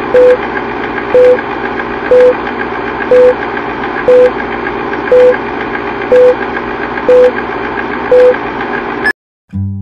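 Film-leader countdown sound effect: a steady film-projector whirr with a fast clatter, and a short beep once a second, nine beeps in all. It cuts off abruptly about nine seconds in, and acoustic guitar music starts just after.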